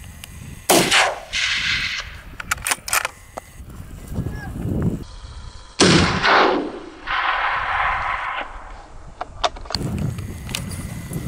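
Two gunshots about five seconds apart from a hunter's scoped gun, each a sharp crack followed by a long rolling echo. A few faint clicks come between them.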